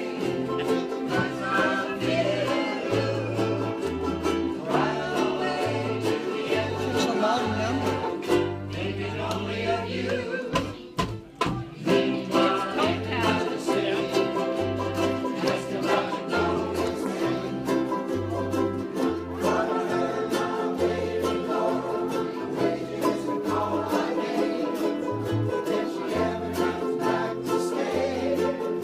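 A ukulele band playing a song: strummed ukuleles over a stepping bass line, with voices singing. The music drops away briefly about eleven seconds in, then picks up again.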